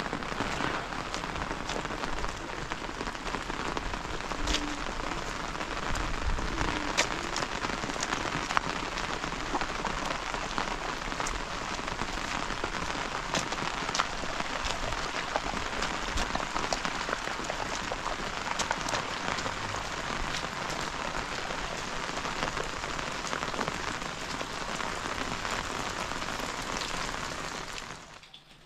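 Steady rain falling on a gravel road and wet ground, with many scattered sharp ticks of single drops striking close by. The rain sound dies away just before the end.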